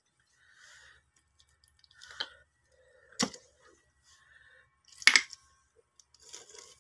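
Three sharp clicks or knocks, about a second or two apart, the loudest about five seconds in, with light rustling between.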